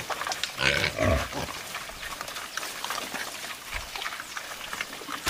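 Pigs grunting and snuffling as they feed, with one louder grunt about a second in.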